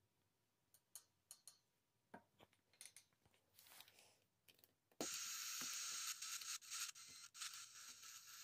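Small clicks of a T-ARTS Showa Mini Boom Box toy cassette radio's buttons being handled, then about five seconds in a steady radio static hiss comes on suddenly from its tiny speaker and carries on.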